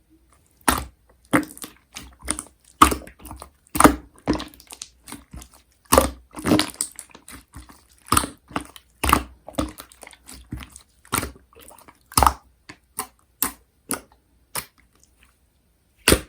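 Slime being pressed and stretched by hand, making irregular sticky clicks and wet pops, sometimes several in quick succession.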